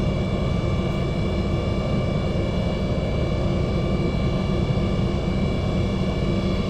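City bus engine idling while the bus stands still, heard from inside the cabin: a steady low drone with a steady high whine above it.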